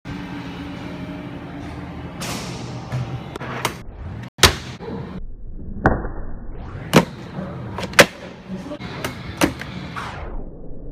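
Tech Deck handboard rolling across a tool box on its small wheels, with about seven sharp clacks and slams as the board pops and lands.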